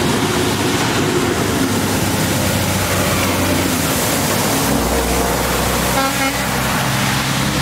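Semi-truck ploughing through deep floodwater: a steady rush and splash of water thrown up by its tyres, over the truck's engine.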